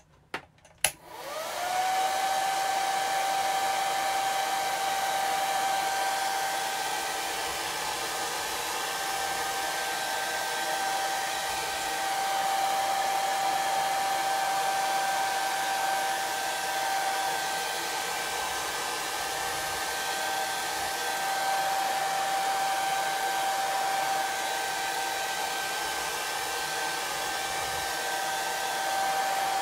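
Handheld hair dryer switched on with a click about a second in. Its motor whines up to speed, then runs steadily with a hiss of blowing air and a steady high whine. It is drying freshly applied chalk paste on a wooden cutout.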